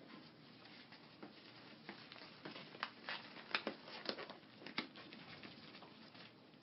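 Fiberglass casting tape being unrolled and wrapped around a lower leg by gloved hands: soft rustling, with a run of sharp crackles in the middle.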